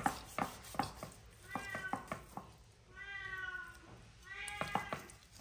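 A hungry domestic cat meowing three times, the middle call the longest. Short clicks and taps of a kitchen knife on a wooden cutting board as a pork hock is cut.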